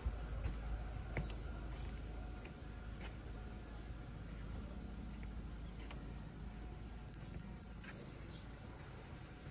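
Quiet outdoor ambience with faint insects chirping over a low steady rumble, and a few light knocks in the first three seconds, like footsteps on wooden planks.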